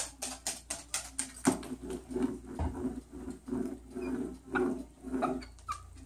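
A cockatoo's claws tapping and clicking on a hard vinyl floor as it walks about. From about a second and a half in there are also softer low thumps, about two a second.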